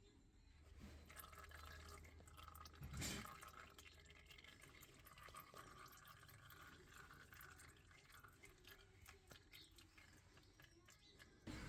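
Faint oil dripping from the engine's oil filter housing, with scattered small ticks and one louder knock about three seconds in.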